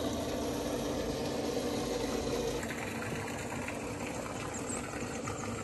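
Steady hum of a small motor running, over a light wash of noise; the sound shifts abruptly about two and a half seconds in.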